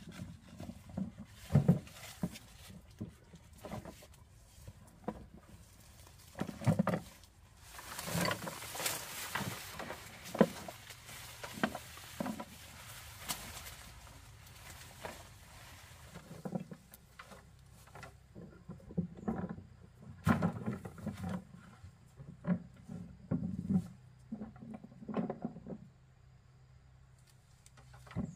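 Irregular knocks, taps and handling noises from manual work, with a longer stretch of louder rustling or scraping about eight seconds in.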